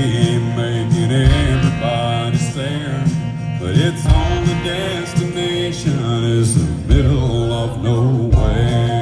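Live country music: a man singing a melody in a deep bass-baritone over strummed acoustic guitar, with a band's low end pulsing in a steady beat.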